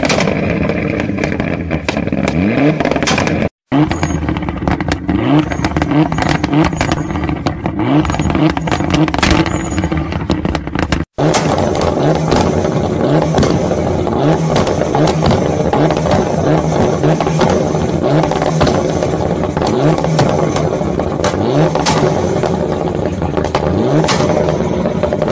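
Mitsubishi Lancer Evolution's turbocharged four-cylinder revved again and again in short rising blips while standing, with sharp exhaust pops and bangs: backfires that shoot flames from the tailpipe. The sound breaks off for an instant twice.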